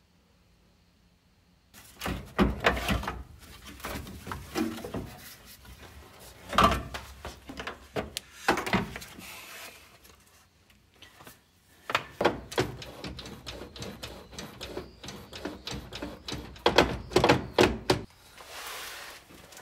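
Irregular knocks and clanks of tools and metal parts being worked under an old kei truck, starting about two seconds in, with a short soft hiss near the end.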